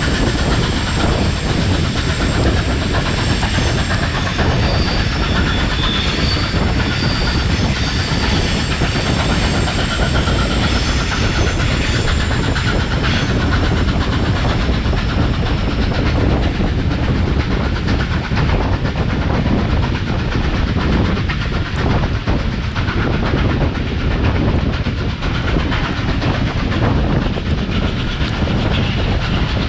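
Steam-hauled passenger train behind locomotive 3801 running along the line: a steady, loud rumble of carriage wheels on the rails with clickety-clack. A thin high whine sits over it for the first ten seconds or so.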